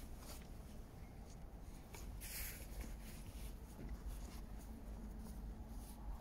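Faint scratchy rustling over a low rumble, with one brief louder rustle about two and a half seconds in.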